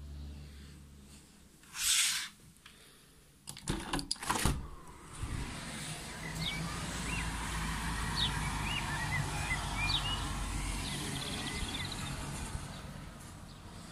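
A sliding door or window is pulled open with a short clatter. Then a steady low rumble of traffic comes in from outside, with small birds chirping over it.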